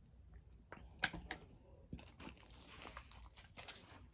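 A burrito's wrapper being handled, crinkling and rustling with small crackles, after a single sharp click about a second in.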